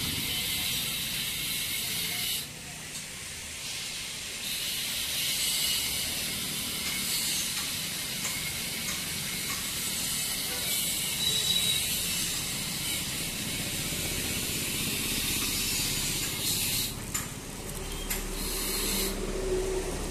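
Stick arc welding on square steel tubing: the electrode's arc crackling and hissing steadily, with a couple of brief pauses where the arc is broken.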